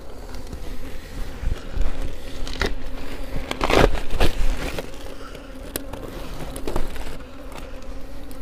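Honeybees buzzing over an open hive, a steady hum, with a few short knocks and rustles from the frames and hive parts being handled, loudest a little under halfway through.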